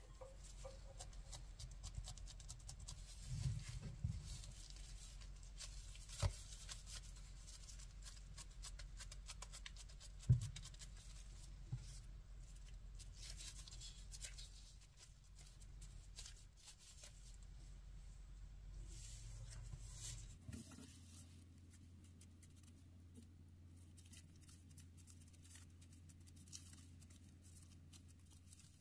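Faint crinkling and rustling of disposable plastic gloves as hands squeeze and flatten soft mashed-potato balls, with a few soft knocks, the sharpest about ten seconds in, over a low hum.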